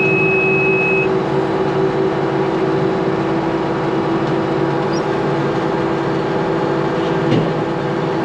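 Tractor engine running steadily while pulling a New Holland 644 round baler through windrowed hay, with the baler's mechanism running along with it. A high steady tone stops about a second in.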